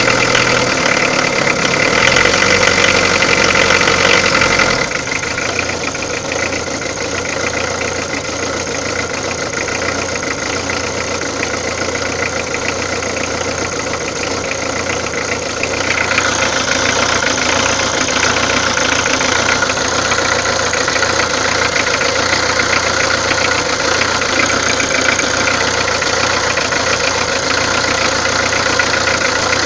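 Peugeot diesel engine running at idle, the engine noise that is being checked for a fault. It drops in level about five seconds in and comes back up about halfway through.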